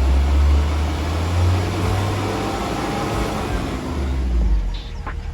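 Hummer H3 driving: a heavy, steady low rumble with broad road and drivetrain noise, easing off near the end.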